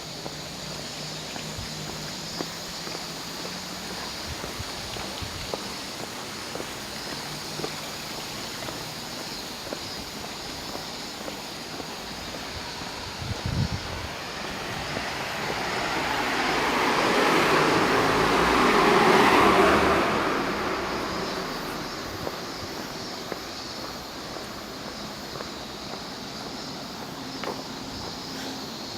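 A road vehicle drives past, its noise swelling for several seconds about halfway through and fading away again. A short knock comes just before it.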